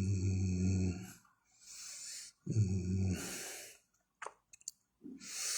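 A man's voice held in two long, low humming tones with a hiss above them, the second shorter. A soft click follows, then a long audible breath near the end.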